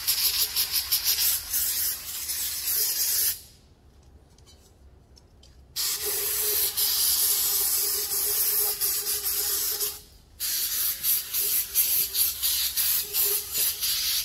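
Aerosol cleaner sprayed in long hissing blasts onto a mild-steel intake pipe to strip its pre-oiled anti-rust coating. The spray stops for about two seconds around four seconds in and briefly again around ten seconds, with quick short spurts near the start and near the end.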